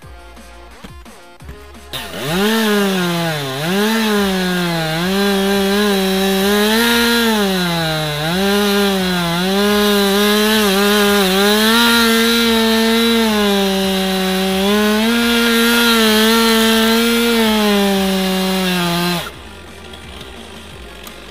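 Chainsaw running at high revs, cutting into oak: its pitch sags and recovers again and again under load. It starts about two seconds in and stops abruptly about two seconds before the end, with faint electronic background music before and after.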